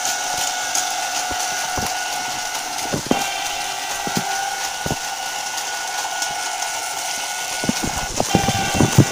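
Plarail Kan-Kan toy level-crossing set sounding its electronic crossing warning bell steadily, with occasional sharp clicks and a few louder ones near the end.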